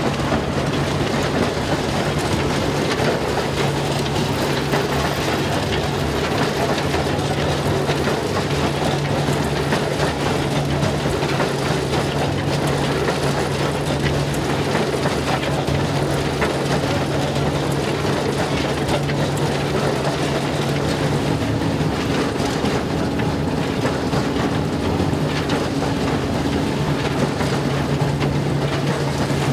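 Vintage threshing mill and Jones stationary baler running together while threshing sheaves: a steady low mechanical hum over a constant rushing noise. A second, higher hum joins about two-thirds of the way through and fades out again.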